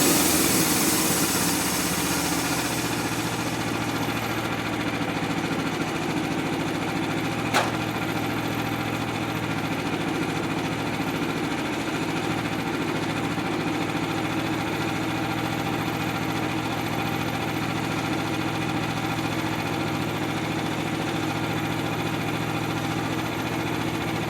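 Portable sawmill's engine settling from higher speed to a steady idle over the first few seconds, then idling evenly. A single sharp click about seven and a half seconds in.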